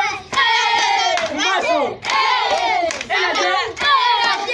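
A group of children chanting a song together in short repeated phrases, about one a second, with hand claps.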